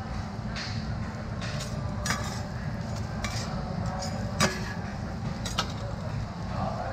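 Metal spatula scraping and clinking on a steel teppan griddle as an okonomiyaki is lifted and moved, with a few sharp clinks, the loudest about four and a half seconds in, over a steady low rumble.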